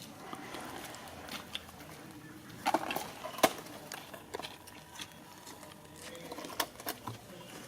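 Scattered small clicks and taps, with a short cluster about three seconds in that ends in one sharp click.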